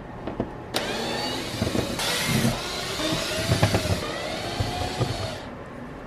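Power drill with a T20 Torx bit running for about four and a half seconds, starting just under a second in, as it backs screws out of a Tesla Model S door. The motor's pitch wavers up and down with the trigger and load.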